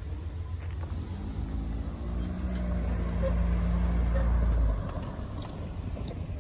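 A small sedan drives over the railroad crossing close by, its engine note building as it approaches and loudest as it passes. The sound drops away sharply about five seconds in, over a steady low rumble.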